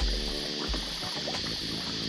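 Background music with a steady low beat and sustained chords.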